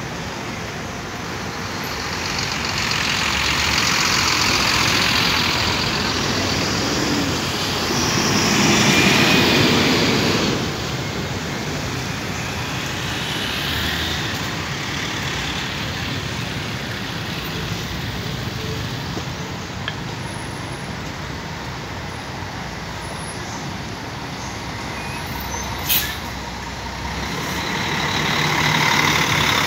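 Road traffic of buses and a truck driving past close by, engine and tyre noise swelling as each vehicle passes and then easing off. Near the end there is a brief sharp sound, then the noise rises again as a coach passes right alongside.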